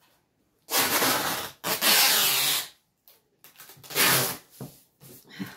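Clear packing tape pulled off the roll in three long rips of about a second each, the first two back to back and the third about a second later, as it is laid across a cardboard box.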